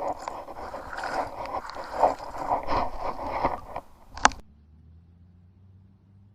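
Objects being handled, with scraping and clattering, ending in a sharp click about four seconds in. After the click only a faint low hum remains.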